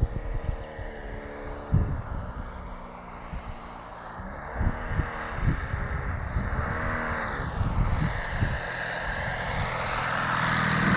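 Propeller engine of a radio-controlled scale Marchetti SF260 running at low throttle on its landing approach with full flaps, growing louder near the end as the model comes in low. Low rumbles of wind buffeting the microphone come and go.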